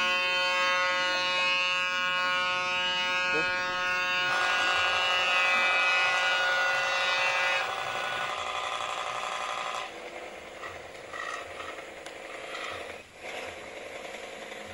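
Toy pop-pop (otok otok) steam boat engine running as a rapid, steady buzz; about ten seconds in it becomes fainter and rougher.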